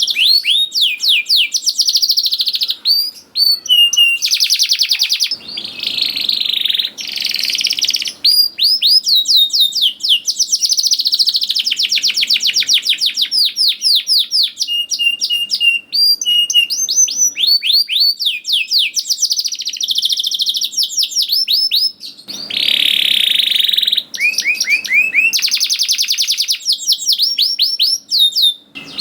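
Domestic canary singing a long, loud song of fast trills: rapid runs of repeated downward-sweeping notes, rolls and chirps, broken by a few brief pauses.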